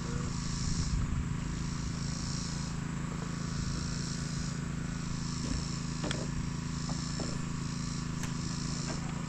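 Insects chirping outdoors in a pulsing rhythm, about one swell a second, over a steady low hum, with a few sharp ticks near the end.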